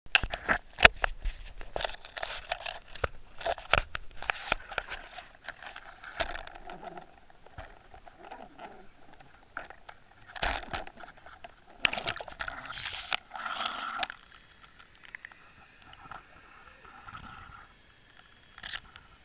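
An action camera in its waterproof housing knocking and clicking against the fishing rig as it is handled, with a quick run of sharp knocks. About ten seconds in comes a splashy stretch as it goes through the water's surface, then muffled, quieter underwater sound as it sinks.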